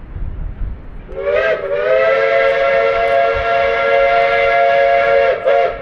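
Steam whistle of Durango & Silverton K-36 steam locomotive 480 sounding a chord of several tones. It slurs up briefly as it opens about a second in, then holds one long blast of about three and a half seconds, followed by a brief dip and a short final toot.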